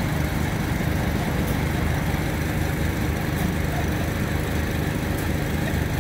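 Small gas engine running steadily, driving the sealcoat spray rig's pump that feeds the spray hoses.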